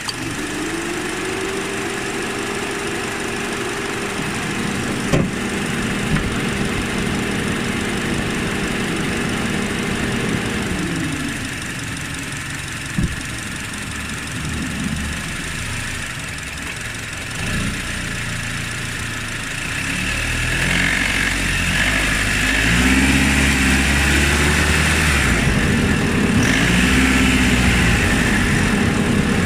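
Honda K24 2.4-litre four-cylinder engine of an Odyssey RB2 running on the move. The engine's pitch rises at the start, holds steady, drops about ten seconds in, then changes and grows louder in the last third, with a few sharp clicks along the way. This is the knock the owner hears at about 1600–1800 rpm while driving.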